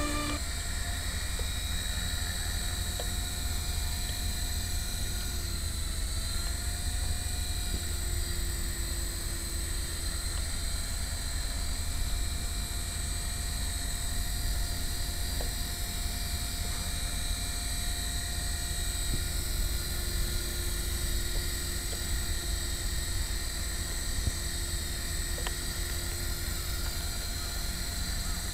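Align T-REX 450 PRO electric RC helicopter with a flybar rotor head, hovering. Its motor and gears give a steady high whine over the rotor noise, and the pitch shifts briefly about six seconds in.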